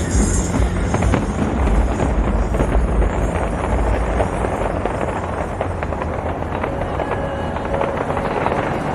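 Fireworks bursting and crackling thick and fast, with deep booms in the first few seconds, over the music of the display.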